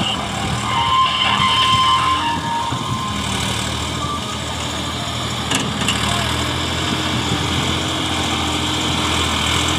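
Massey Ferguson 240 tractor's diesel engine running steadily, then rising in pitch from about six and a half seconds in as the tractor starts to pull a loaded trolley. A brief high whine sounds about a second in.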